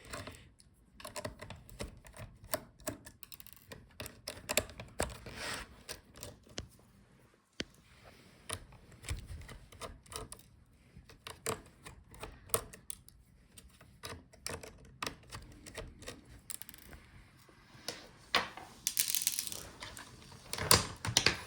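Small irregular clicks and taps of a screwdriver and metal parts while unscrewing the hinge screws of a Lenovo Legion Slim 5 laptop, with a couple of louder scraping handling noises near the end.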